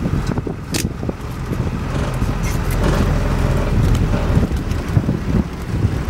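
A vehicle driving over a rough bush track: a steady low rumble with many small knocks and rattles.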